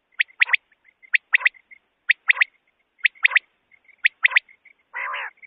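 Common quail's three-note song (the 'wet-my-lips' call), repeated five times about once a second, each phrase one sharp note followed by two quick ones, with faint soft notes between phrases. A short harsh croaking burst comes near the end.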